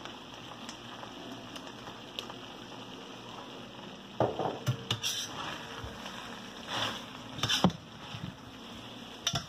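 Chicken livers with peppers and onions sizzling steadily in a stainless steel frying pan; from about four seconds in, a metal spoon stirring them clinks and scrapes against the pan several times.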